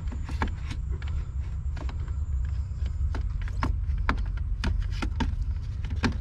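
Irregular metallic clicks and knocks of a socket on long extensions bumping and fitting onto a brake booster mounting nut under a car's dashboard, over a steady low hum.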